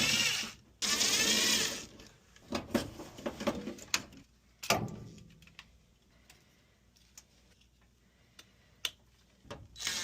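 Cordless drill-driver spinning in two short bursts, then again near the end, with clicks and a sharp knock of handled metal parts in between: screws being driven while the furnace's faulty limit switch is replaced.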